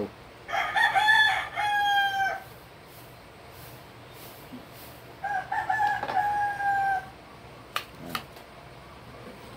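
A rooster crowing twice, about five seconds apart, each crow a few short notes followed by one long held note. A sharp click comes near the end.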